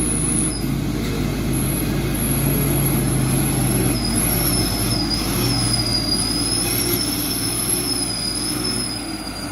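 Heavy diesel engine running steadily, its pitch dipping a little now and then, with a thin high whine wavering over it from about four seconds in.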